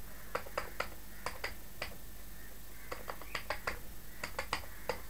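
Computer keyboard being typed on: short runs of key clicks, a few keystrokes at a time with brief pauses between, as an address is typed into a web form.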